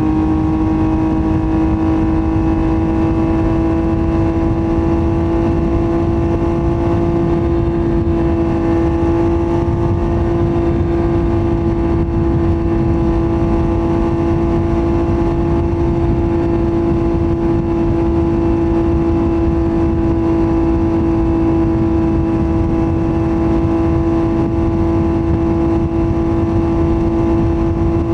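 Yamaha MT-09's three-cylinder engine through a Roadsitalia titanium full exhaust, running at a steady high engine speed. Its drone rises slightly in pitch over the first few seconds, then holds, over a rough rushing noise.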